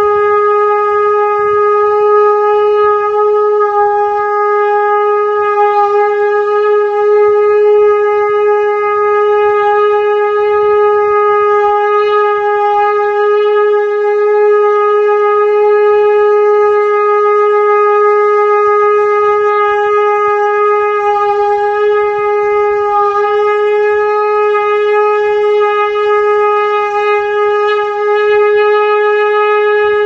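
Shankh, a conch-shell trumpet, sounding one unbroken note held at a steady pitch and loudness, rich in overtones.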